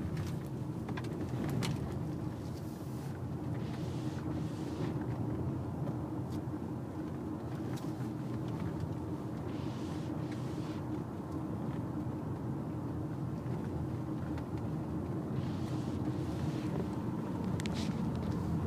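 Car running along a road, heard from inside the cabin: a steady low engine and road drone, with a few soft swishes now and then.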